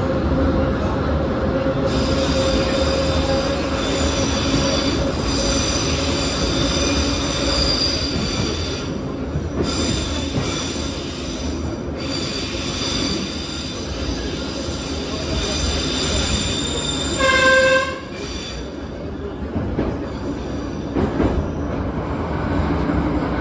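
Moscow Metro retro train running at speed, its wheels squealing in a high ring for much of the time, with one short horn blast about seventeen seconds in.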